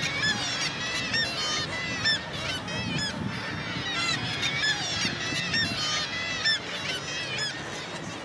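Black-legged kittiwakes calling at a nesting colony: many overlapping short calls with rising-and-falling notes, one after another throughout.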